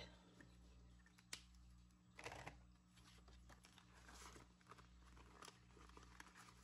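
Faint rustling and crinkling of paper dollar bills being handled and pulled from a binder pocket, with a single light click about a second in, over a low steady hum.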